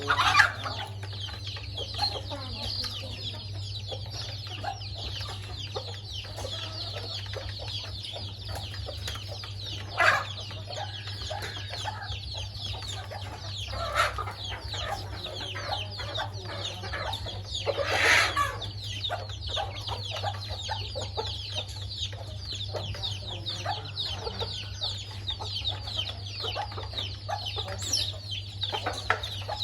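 A flock of chickens feeding: a constant stream of short, high peeping calls with a few louder clucks here and there, over a steady low hum.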